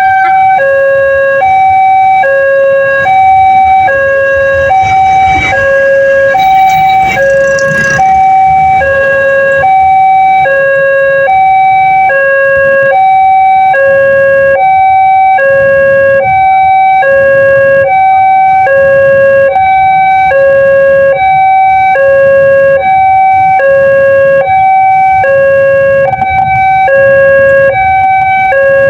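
Railway level-crossing warning siren sounding continuously in a loud two-tone pattern, alternating high and low about once a second, the signal that the crossing is closing for a train. This is the crossing's newly fitted siren, which replaced an earlier one that had sounded hoarse.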